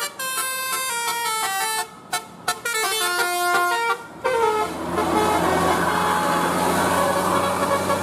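A tour bus's 'telolet basuri' musical air horn playing a quick melody of short, stepped notes, with a couple of brief pauses. About four and a half seconds in, the melody stops and loud engine and road noise with a low hum takes over.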